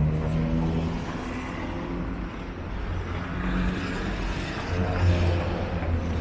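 City street traffic: motor vehicle engines running and passing. One low engine hum fades about a second in, and another swells near the end.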